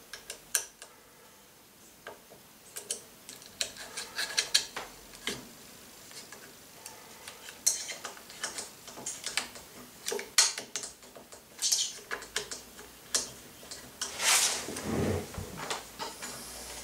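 Irregular metallic clicks and clinks of a hex key working the motor-mount screws on an aluminium CNC gantry plate, as the motor is shifted to set the drive-belt tension. Near the end comes a longer, louder rubbing rumble.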